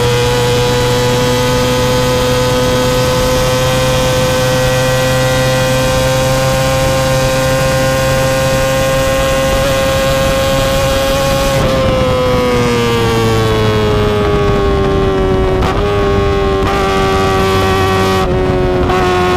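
Kawasaki ZX25R's 250 cc inline-four engine through an Akrapovic exhaust, held high in the revs with a steady, high wail whose pitch creeps slowly up. About twelve seconds in the throttle eases off: the pitch slides down over a few seconds and settles at a lower, steady note.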